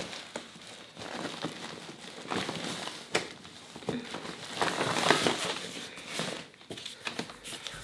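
Rustling and crinkling of a fabric shopping trolley bag and the packaging inside as a hand rummages in it, with a few small sharp knocks.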